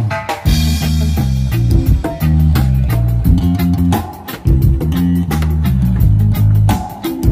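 Live band music during a sound check: a deep bass line stepping between notes over drums and electronic percussion pads played with sticks, keeping a steady beat.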